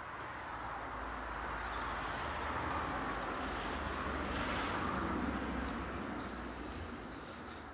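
A passing vehicle: a broad rushing sound over a low rumble that swells to its loudest about five seconds in and then fades. A few light clicks near the end.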